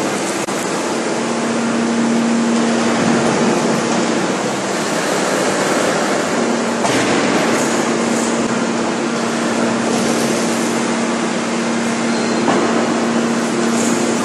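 5000-tonne hydraulic forging press working a red-hot forging: a loud, steady machine roar with a constant low hum that drops out briefly and comes back about seven seconds in.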